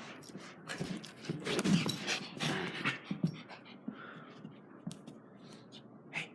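A dog's noises with rustling and clicking, loudest from about one to three seconds in.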